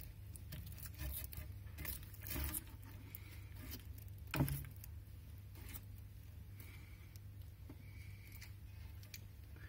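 Faint, irregular clicks and crunches of a central bearded dragon chewing sweet potato shavings, the sharpest about halfway through, over a steady low hum.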